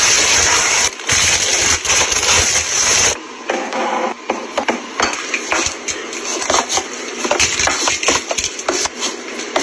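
Plastic snack bags rustling and crinkling as they are stacked on a shelf, then, from about three seconds in, many quick clicks and knocks as jars are set down and pushed into place on the shelf.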